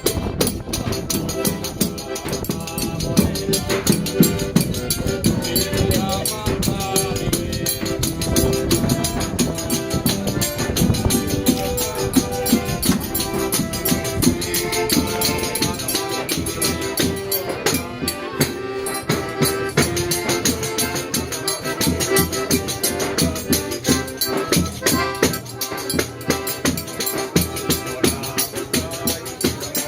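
Live forró pé de serra music: a band playing at a steady dance tempo, with held melody notes over a dense, even beat of shaken, rattling percussion and drum.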